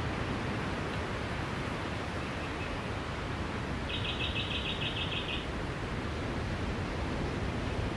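Beach ambience: a steady wash of surf noise, with a bird's rapid high trill of about ten chirps lasting about a second and a half, about four seconds in.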